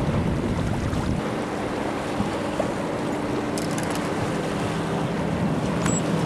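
Wind buffeting the microphone over choppy open water around a boat; the heaviest gusting eases about a second in. A faint steady low hum runs underneath.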